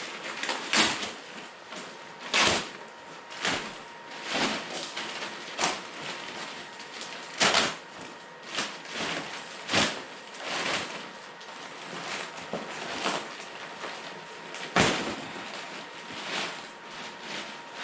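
Packaging wrap being pulled and crinkled off a replacement car bumper, in a series of short, irregular rustling bursts.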